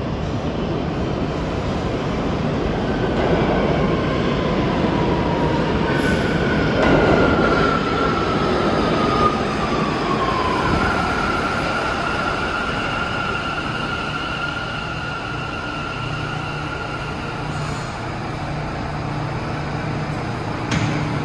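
New York City subway J train in the Bowery station: a steady rumble of wheels on rails, with high tones over it. One tone falls in pitch about six to ten seconds in, then a steady high tone holds for several seconds.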